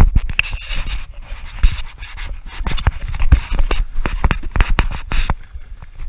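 Hurried footsteps swishing through tall grass, with hard breathing and irregular rustles and knocks close to the microphone.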